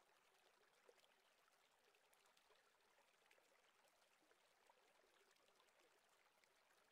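Near silence: the soundtrack drops out almost completely.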